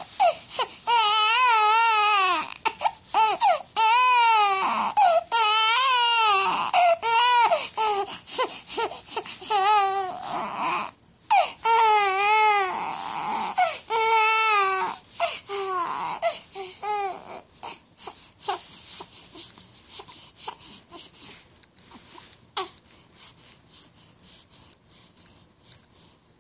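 Baby crying in a string of high, wavering wails, each a second or two long with short breaks between. After about 17 seconds it dies down to faint, scattered little sounds.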